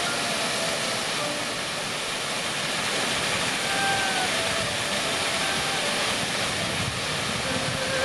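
Steady rushing of water spilling over a mostly frozen waterfall into the creek below.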